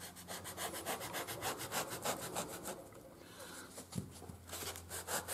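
A knife sawing and carving through a black knee-roll block in rapid short scraping strokes, with a brief pause near the middle. There is a light knock about four seconds in.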